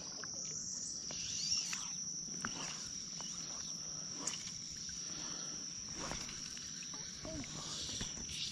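Insects droning in a steady high-pitched chorus, with a few faint scattered clicks over it.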